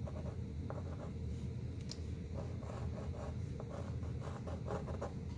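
White chalk scratching across a canvas panel in short, irregular sketching strokes, more of them in the second half, over steady low background noise.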